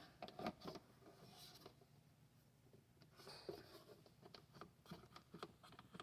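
Faint scratching of a pen or marker tracing around a speaker ring laid on the headbar, with light handling taps.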